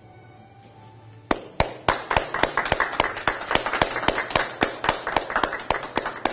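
Hand clapping from a small group, starting about a second in as separate sharp claps that run on steadily. Faint music can be heard under it at the start.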